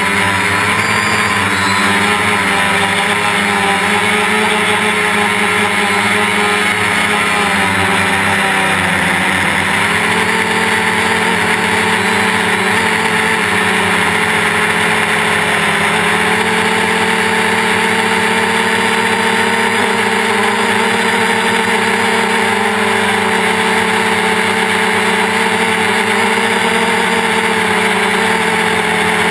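Quadcopter's brushless electric motors and propellers, heard from a camera on the frame: a loud, steady multi-tone whine over a rushing hiss. The motor tones shift in pitch about nine seconds in and again around sixteen seconds as the motors change speed.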